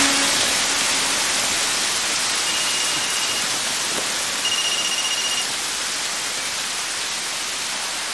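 Heavy rain pouring steadily, a dense even hiss. Two faint, brief high beeps sound a few seconds in.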